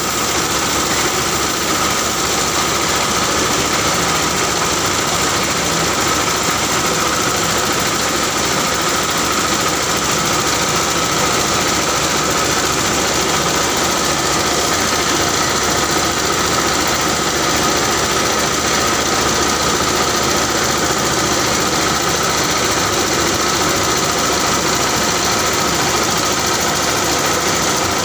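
Diskmill 45 grinding mill with steel-toothed disks running under load as material is fed through its hopper: a loud, steady mechanical noise with a steady whine.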